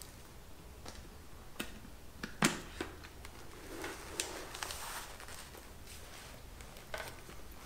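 Carbon full-face AGV Pista RR motorcycle helmet being pulled on over the head: light rubbing of the padding with scattered small clicks and knocks from the shell and chin strap, the sharpest about two and a half seconds in.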